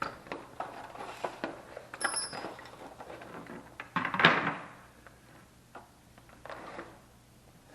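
Irregular clatter of knocks and clicks from handling hard objects, with a louder knock and scrape about four seconds in.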